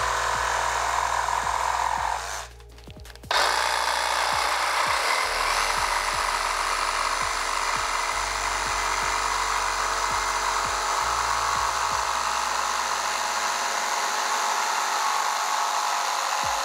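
DeWalt DCS334B 20V cordless jigsaw cutting a bevel through a wooden board, its reciprocating blade making a steady, high buzz. The saw stops for about a second a little after two seconds in, then starts again abruptly.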